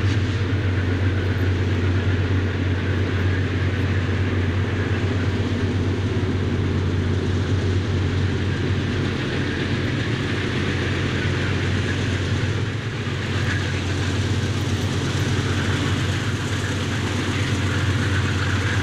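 Diesel locomotives of a freight train running steadily as the train approaches through a tunnel: a loud, even, low engine rumble with no break.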